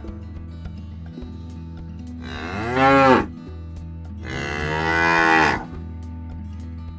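Cattle mooing: two loud moos, the first about two seconds in, rising and falling in pitch, and a longer second one about four seconds in, over soft background music.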